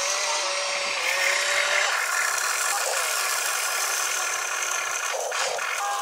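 Small electric motors and gearboxes of an RC excavator whirring as it lifts a loaded bucket and swings toward the dump truck, a thin whine that wavers in pitch, over a steady high hiss.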